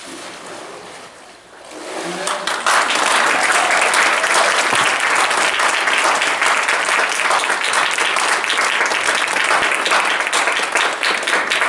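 Water sloshing and splashing in a baptismal tank as a person is immersed, then a congregation clapping, swelling about two seconds in and keeping on steadily.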